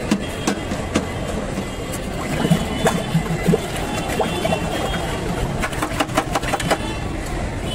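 Steel spoon clinking and tapping against a small steel bowl and steel tray in scattered sharp clicks, with a quick run of clinks near the end, over a steady hum of street traffic.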